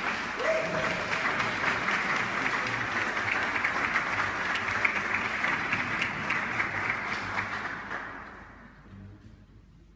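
Audience applauding, the clapping dying away about eight to nine seconds in.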